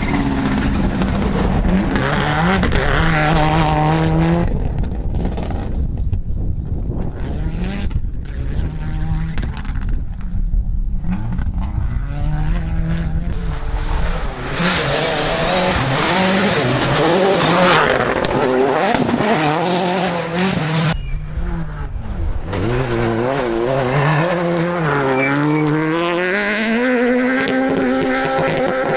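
Rally cars at full throttle on a gravel stage, one after another: engines revving hard, pitch climbing and dropping with each gear change, as they pass. It goes quieter for a few seconds twice between cars.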